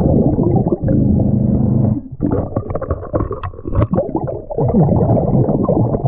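Muffled underwater bubbling and rumbling, heard with the microphone submerged: a diver's exhaled air bubbling out of a surface-supplied hookah breathing regulator, with a short break about two seconds in.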